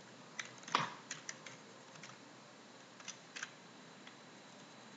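Computer keyboard being typed on: a few scattered key clicks, the loudest about a second in and another short run around three seconds in, over a faint steady hiss.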